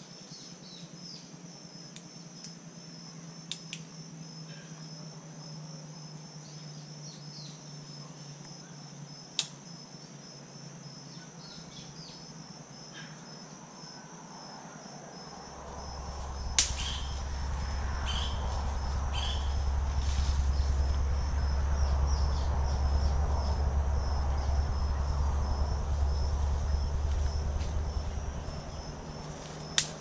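Steady, high-pitched pulsing insect chorus, with a few sharp snaps of cassava stems being broken. About halfway through, a loud low rumble swells up, holds for about twelve seconds, then fades near the end.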